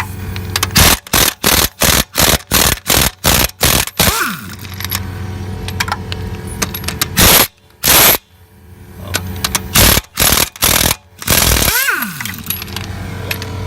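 Impact wrench rattling in a quick series of short bursts, about three a second, then a few longer single bursts, over a steady low hum.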